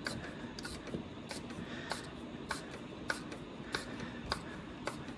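Faint, sharp ticks at a steady pace, a little under two a second, over a quiet background hiss.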